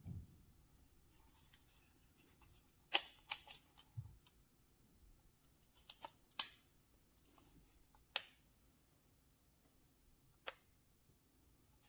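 A few sharp light clicks and taps spread out over a quiet room, with a soft low thump about four seconds in: small objects being handled.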